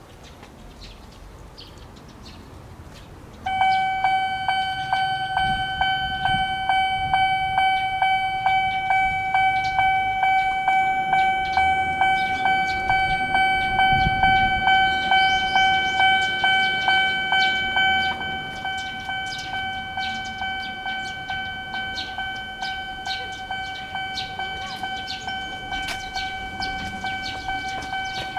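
Japanese railway level-crossing warning bell, an electronic ding-ding alarm, starts about three and a half seconds in. It repeats evenly at about one and a half dings a second, signalling that a train is approaching, and becomes somewhat quieter at about 18 seconds.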